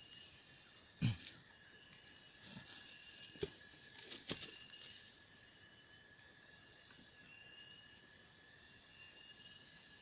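Insects buzzing steadily in several high, constant tones, one of them a repeated short call. A few short knocks stand out over it, the loudest about a second in and a small cluster in the middle.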